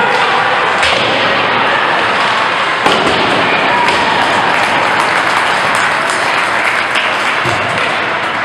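Hockey spectators in an ice rink shouting and cheering as a steady din, cut by sharp knocks of stick and puck, the loudest just before three seconds in.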